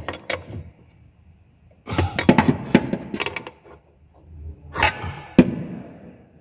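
Hand tools clicking and knocking on metal as the throttle body's mounting bolts are tightened. The sounds come in three short bursts of rapid clicks, and the sharpest knock falls about five seconds in.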